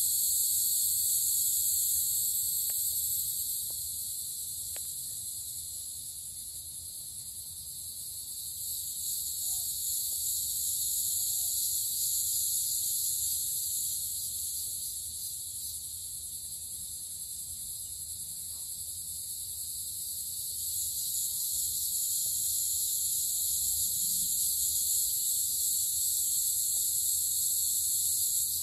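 Insect chorus: a steady, high-pitched shrill trilling in several bands, swelling and ebbing slowly a few times.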